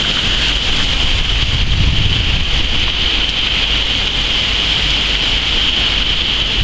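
Heavy thunderstorm rain and strong wind: a steady, loud hiss of rain over a low rumble of wind buffeting the microphone.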